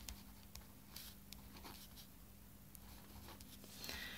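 Faint scratching of a ballpoint pen writing on paper in short, irregular strokes.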